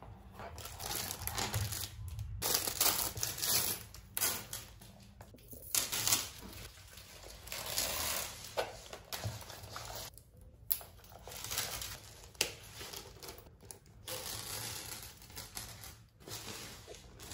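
Crinkling and rustling of packaging as a new handbag is unpacked by hand, in irregular bursts with a few short pauses.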